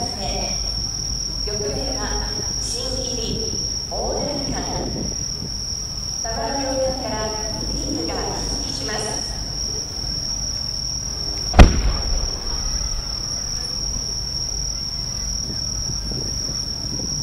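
Insects trilling steadily on one high note, with people talking quietly in the first half. About two-thirds of the way through comes one sharp, loud boom, the thump of a large firework shell being fired from its mortar.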